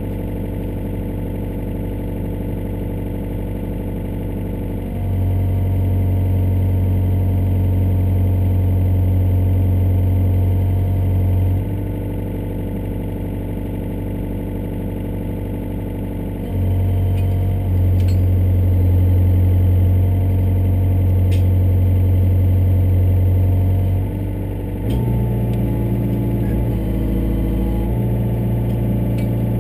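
Yanmar ViO57 mini excavator's four-cylinder diesel engine running, heard from inside the cab. Twice it loads up to a louder, deeper note for several seconds, about five seconds in and again at about sixteen seconds, as the hydraulics work the arm. It settles onto a different steady note near the end.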